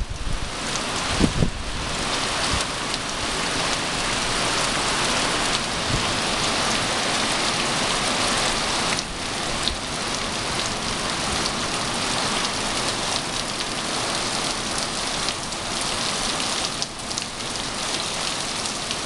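Heavy hurricane rain pouring steadily, a dense even hiss, with a brief low rumble about a second in.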